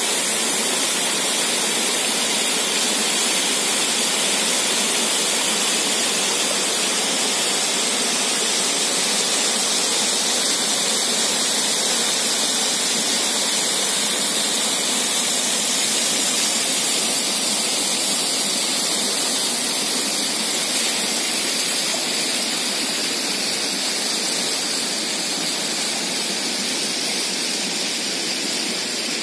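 A small waterfall and stream rushing steadily over rocks: an even, continuous water noise.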